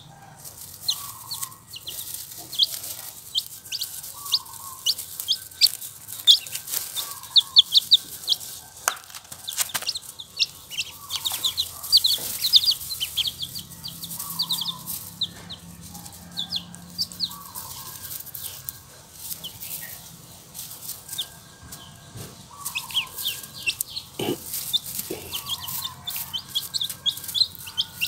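Baby chicks and ducklings peeping: many quick high-pitched cheeps, with a softer, lower call repeating every second or two and a few scattered knocks.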